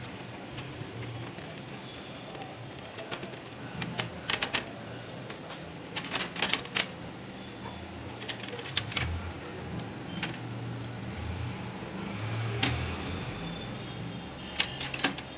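Packing tape being peeled off the plastic casing of an Epson L3110 inkjet printer, with fingers handling the casing, in sped-up footage. It gives irregular sharp clicks and crackles that come in small clusters.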